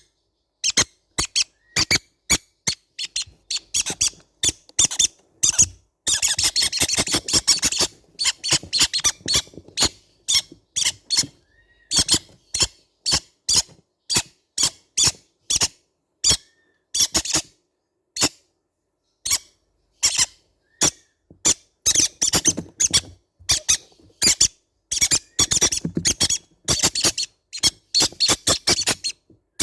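Baby green-cheeked conures squeaking in short, high-pitched calls, one after another in quick runs with brief silent gaps between them.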